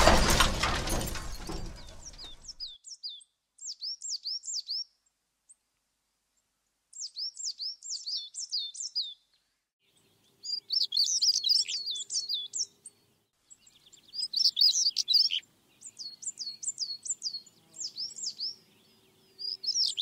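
Loud music dies away over the first two seconds. Then a songbird sings bouts of quick, high, down-slurred chirps, about half a dozen short bursts with pauses between them.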